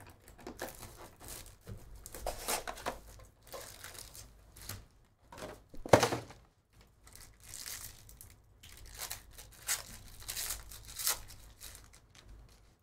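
Panini Phoenix football hobby box and its foil card packs being opened: plastic wrapper tearing and crinkling in irregular bursts, with one sharp knock about six seconds in.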